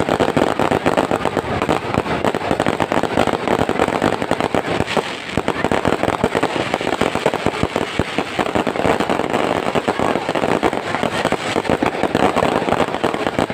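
A string of firecrackers going off in a rapid, unbroken run of sharp bangs, many a second.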